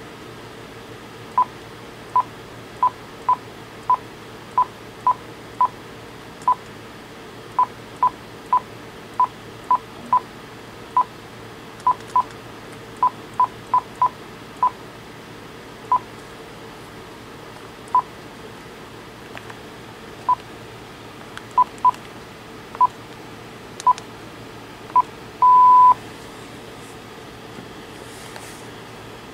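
Key-press beeps from a Uniden Loud & Clear DECT 6.0 cordless handset as its phone book entries are deleted one by one: about thirty short beeps at one pitch, irregularly spaced and sometimes in quick pairs, then one longer beep near the end.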